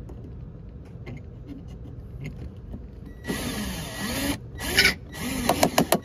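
Cordless power driver backing out door hinge screws: after a few quiet seconds the motor runs in several short bursts, its speed rising and falling, then turns to a rapid rattling hammer near the end.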